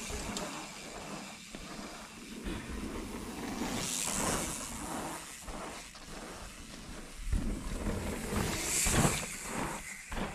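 Mountain bike riding down a dirt trail: tyre noise and rattling over bumps, with wind rushing past the microphone and two louder hissing surges about four and nine seconds in.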